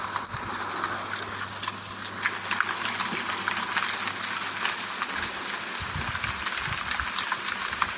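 Rain falling, with many separate drops ticking sharply on a hard surface over a steady hiss, and a faint low steady hum underneath.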